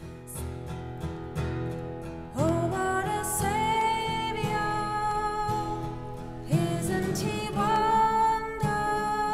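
Acoustic guitar picked under a woman singing long held notes. The first note slides up into pitch about two seconds in and a second starts near seven seconds.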